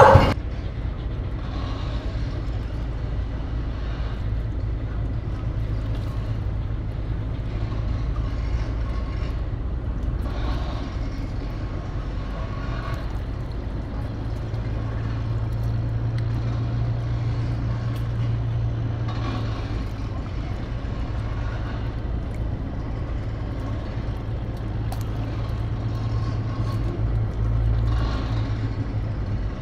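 Steady low rumble of distant motor traffic, its low hum growing stronger about halfway through.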